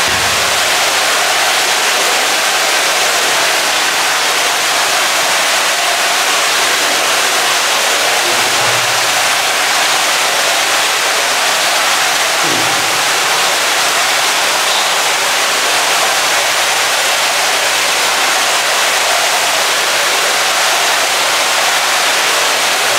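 Steady, loud rushing noise, even and unbroken, with a faint low thud or two partway through.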